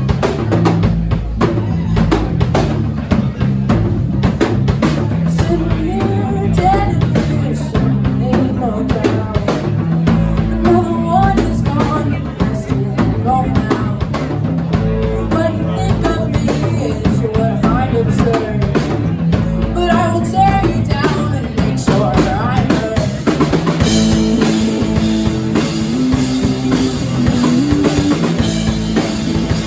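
Live rock band playing an original song, with the drum kit driving a steady beat under bass and melodic lines. About two-thirds of the way through, the sound fills out and gets brighter.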